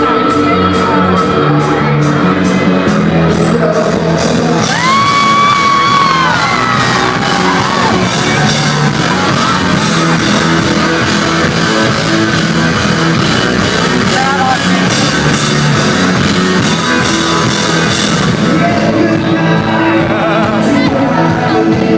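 Live electronic rock band playing loudly with singing, heard from the audience in a large hall. A high sliding note starts about five seconds in.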